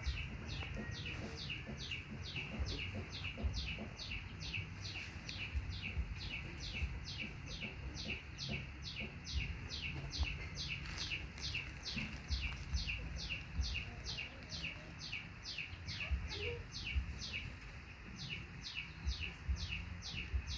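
A bird calling with a short high chirp that slides down in pitch, repeated steadily at about two to three a second, over a low rumble.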